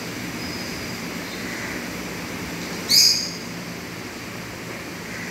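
A single short, high-pitched chirp about three seconds in, over a steady background hiss.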